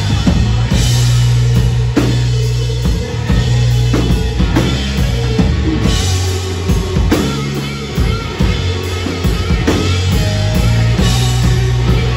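Live rock band playing through a PA: drum kit beating steadily under electric guitars and sustained low bass notes.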